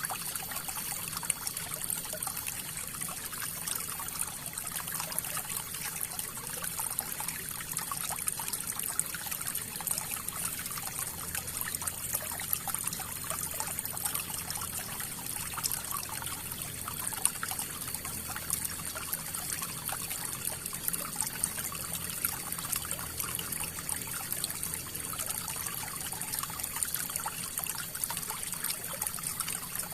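River water flowing and trickling steadily, with a constant stream of small splashes and gurgles.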